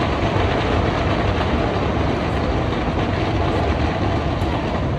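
Fireworks going off in a rapid, continuous barrage, the bursts blending into a steady crackling rumble.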